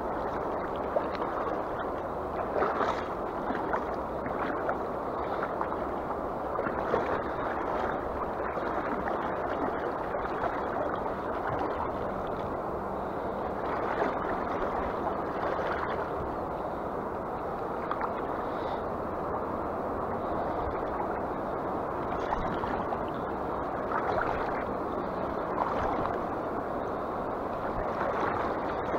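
Fast-flowing river current rushing steadily, with brief louder gurgles now and then.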